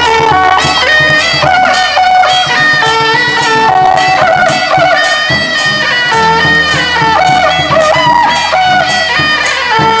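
Loud traditional Taiwanese procession music: reed shawms of the suona type play a shrill stepped melody over regular percussion strikes.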